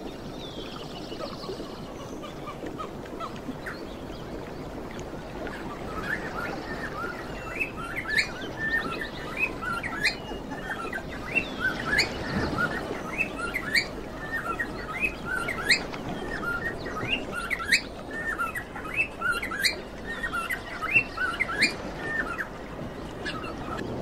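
Small pet parrots chirping: a fast, busy run of short rising chirps that starts about six seconds in and keeps going over a steady background hiss.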